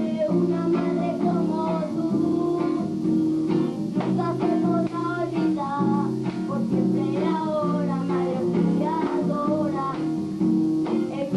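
Guitar playing chords as a young girl sings a song.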